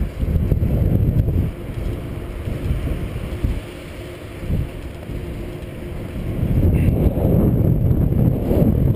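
Wind buffeting the microphone of a moving bicycle, with the low rumble of tyres rolling on a paved trail. It eases in the middle and rises again about six to seven seconds in.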